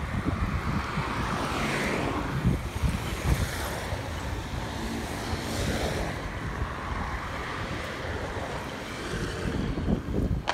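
Wind buffeting the microphone of a camera on a moving bicycle: a steady rushing noise with a gusty rumble underneath.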